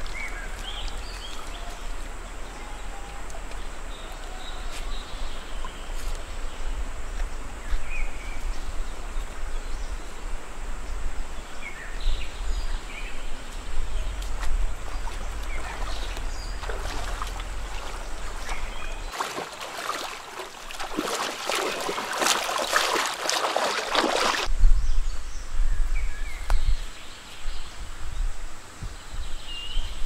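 Shallow forest stream running steadily, with a person wading through the water: a louder run of splashing, sloshing steps about two thirds of the way through.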